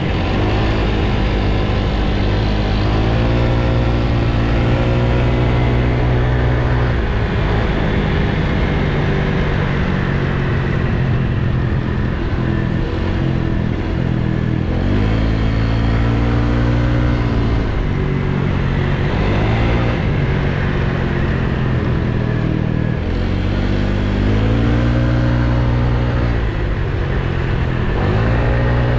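Motor scooter engine running under way, its pitch rising and falling several times as the throttle is opened and closed through the curves, over a steady rush of riding noise.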